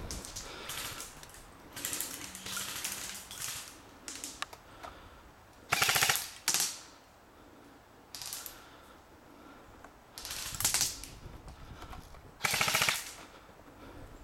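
Airsoft guns firing short full-auto bursts, a rapid rattle of shots. Several bursts come one after another, with the loudest about six seconds in, another shortly before eleven seconds, and one near the end.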